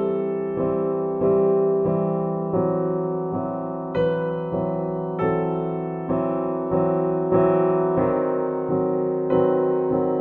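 Background music: slow, soft piano or electric piano playing sustained chords, each struck note fading before the next.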